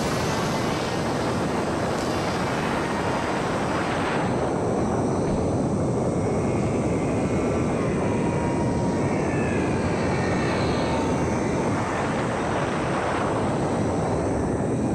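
Small homemade electric radio-control plane in flight: its motor and propeller whirring steadily under heavy wind rush, with a faint whine that rises and falls about halfway through.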